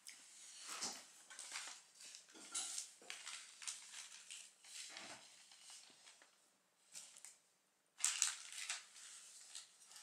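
Soft, irregular rustling and rubbing noises of hands handling a smartphone, with a louder scuffle about eight seconds in.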